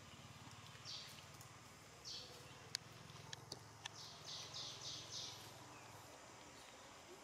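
Faint outdoor ambience: short, high, raspy chirps, one about a second in, another at two seconds, then about four in quick succession around the middle, with a few sharp ticks and a low steady hum that stops near the end.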